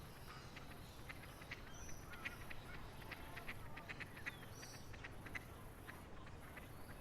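Birds calling in a busy run of short, sharp notes, with a couple of brief higher whistles about two and five seconds in, over a low steady rumble.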